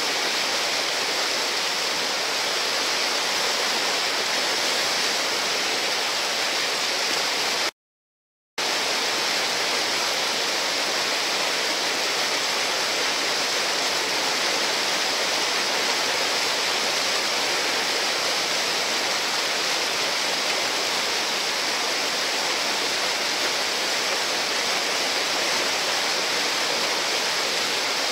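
Steady rushing of whitewater: a river running high on a dam release, pouring over a rocky ledge into a churning hole. The sound cuts out completely for under a second about eight seconds in.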